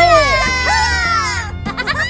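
Background music under a high-pitched, wavering cry that slides down in pitch over about a second and a half, followed near the end by a couple of shorter cries that rise and fall.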